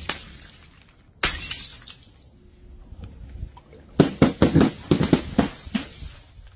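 Sharp shattering and bursting impacts of objects dropped onto a hard floor: one hit at the start and another about a second in, each dying away quickly, then a rapid run of about eight impacts between about four and six seconds in.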